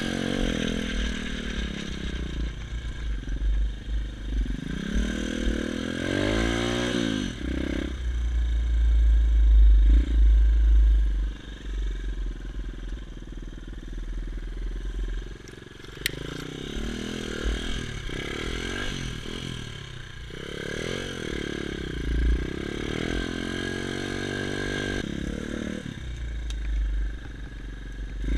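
Xmotos XB33 140cc pit bike's single-cylinder engine revving up and down while being ridden over a rough track, its pitch rising and falling again and again. Rattling comes from the bike, and a heavy low rumble is loudest about eight to eleven seconds in.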